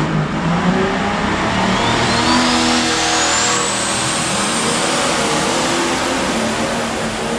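A motor vehicle accelerating. A thin high whine rises steadily from about a second and a half in, then levels off about halfway through, over dense running noise.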